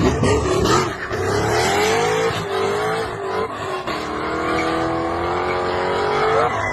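A vehicle engine revving under load. Its pitch climbs, holds, drops about four seconds in, then climbs slowly again.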